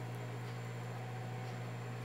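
A steady low hum over an even background hiss, unchanging throughout.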